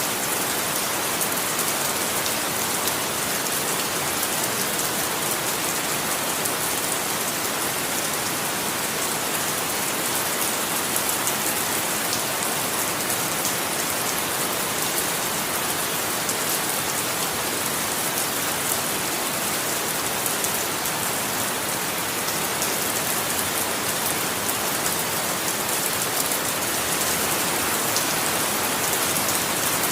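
Steady rain falling on a surface, a dense even hiss with fine patter of individual drops.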